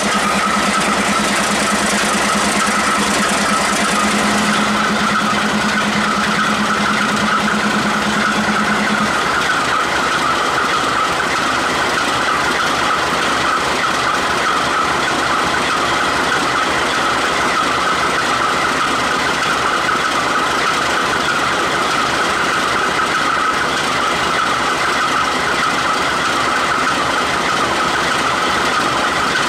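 Diesel freight locomotives running: a loud, steady engine drone with a high whine throughout. A low steady hum stops about nine seconds in.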